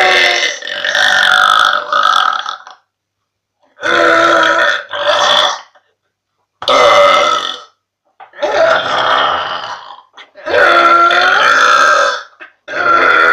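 A young woman letting out long, loud burps one after another, each with a deep croaking pitch, separated by brief silent gaps.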